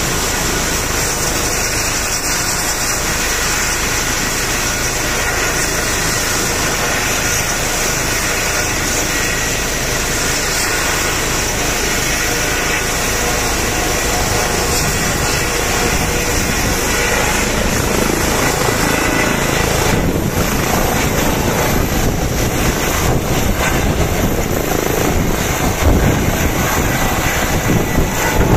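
Airbus H135 helicopter's turbine engines and main rotor running on the ground with a steady high whine. From about two-thirds of the way through, the rotor noise grows louder as it powers up and lifts off, and near the end the rotor wash buffets the microphone in gusts.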